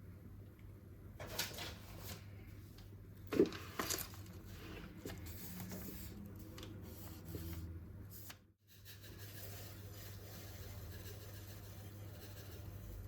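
Quiet room sound with a low steady hum and a few brief handling noises: one about a second and a half in and two close together around three and a half to four seconds in, the second pair the loudest.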